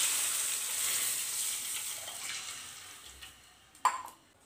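Milk poured into a hot kadai of ghee, sizzling and hissing loudly as it hits the metal, the hiss dying away over about three seconds as the pan cools. A single short knock near the end.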